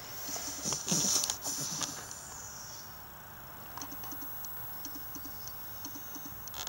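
Soft rustling of fur and bedding as a hand moves over the sleeping puppy and dog, louder for the first couple of seconds. After that, only faint, irregular light ticks.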